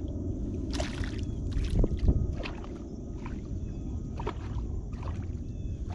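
Wind rumbling on the microphone over water lapping at a kayak hull, with several short splashes and knocks as a small hooked crappie is pulled to the side of the boat.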